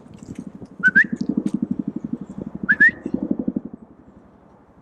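Two short rising whistles, about two seconds apart, calling a lost dog back, over a steady low pulsing rumble that fades near the end.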